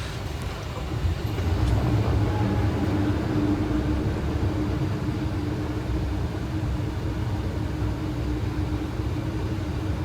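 Boeing 737 flight-deck noise on approach: a steady rumble of airflow and engines, with a steady low hum running through it.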